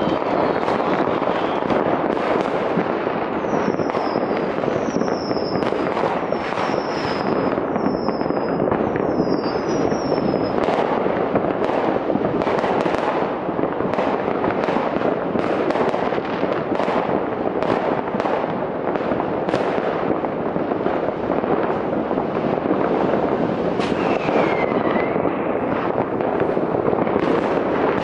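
Massed fireworks going off all at once across a wide area: an unbroken din of bangs and crackle from many rockets and firecrackers. A string of short whistles falling in pitch runs from about four to ten seconds in, and one more whistle falls near the end.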